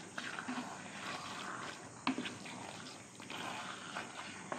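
A spoon stirring thick chicken curry in a large metal pot: wet scraping and squelching of the masala-coated chicken, with sharp clicks of the spoon against the pot, one about two seconds in and another at the end.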